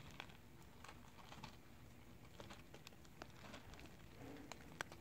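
Cats eating dry kibble from a plastic bowl: faint, irregular small crunches and clicks.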